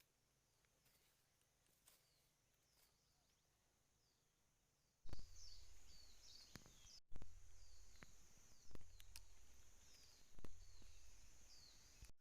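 Small birds calling in short, repeated, falling chirps, faint at first. About five seconds in, a low rumble starts and several sharp knocks come over the chirps.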